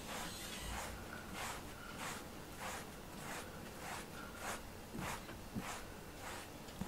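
Grooming brush with pink pins stroking through a cat's fur: a faint, even run of swishes, about one stroke every 0.6 seconds.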